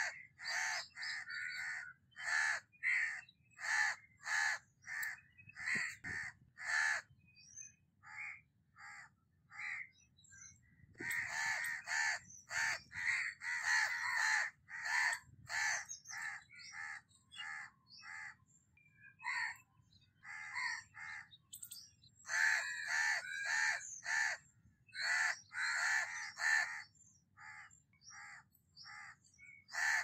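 Harsh, cawing bird calls repeated in bouts of short notes, about two a second, with brief pauses between the bouts.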